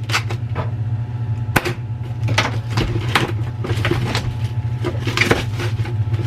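Irregular clicks, taps and rustles of an instant ramen container and its packaging being handled, over a steady low hum.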